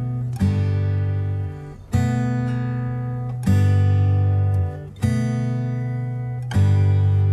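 Background music: acoustic guitar strumming a chord about every second and a half, each chord left to ring and fade.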